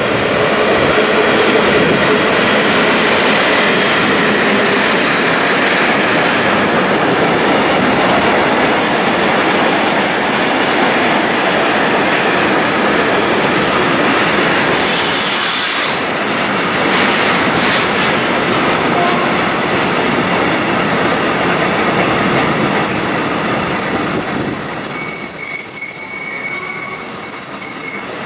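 Electric-hauled container freight train passing through a station without stopping: a steady rumble and clatter of the wagons' wheels on the rails. About three-quarters of the way through, a high, steady wheel squeal sets in and holds.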